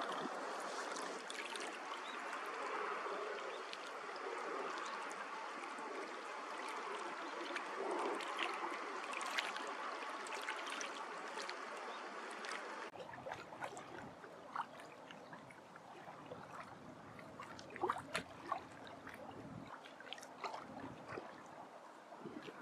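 Seawater lapping and trickling against rocks at the water's edge. About thirteen seconds in, it drops abruptly quieter, leaving a soft hiss with scattered small ticks and splashes.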